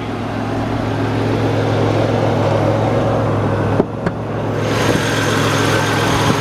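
Buick Century station wagon's engine idling steadily. A sharp click and a second knock about four seconds in as the hood is unlatched and raised, after which the engine sounds brighter and fuller.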